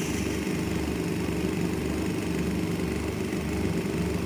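Hardinge turret lathe running with a steady hum while a rear parting tool cuts a small brass pin off the bar.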